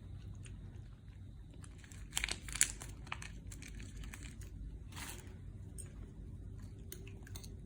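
A plastic cat-food pack being crinkled and torn open, in short crackling bursts about two seconds in and again around five seconds.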